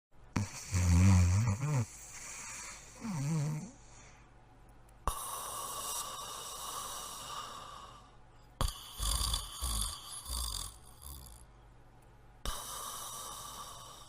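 Broholmer dog snoring in its sleep: two deep snores in the first few seconds, then quieter breathing and a run of short, low breaths around nine to eleven seconds in.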